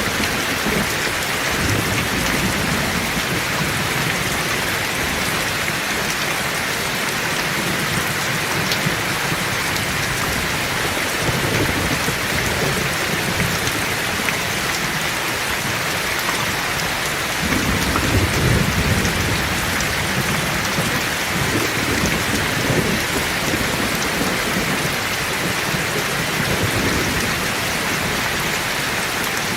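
Heavy rain falling steadily, with rumbles of thunder rolling in and out underneath, the loudest rumble about two-thirds of the way through.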